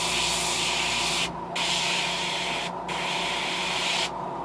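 Airbrush hissing as it sprays thin coats of paint onto a fishing lure, the trigger let off briefly about a second in and again near three seconds, then released about four seconds in.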